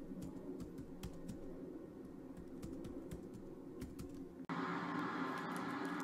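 Laptop keyboard being typed on: irregular key clicks over a low room hum. About four and a half seconds in, music cuts in abruptly.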